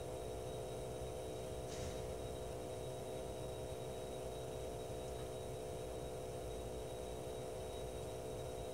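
Lighthouse Handheld 3016 particle counter's internal air pump running steadily through a one-minute count, a low hum with a faint high whine above it.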